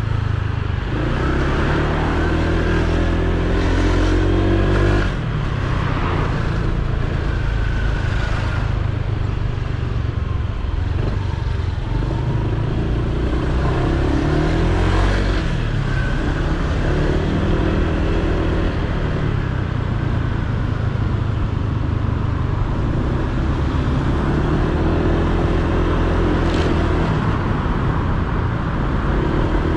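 Honda PCX 125 scooter's single-cylinder engine running at low road speed in traffic, its pitch rising and falling several times with the throttle, over road and traffic noise.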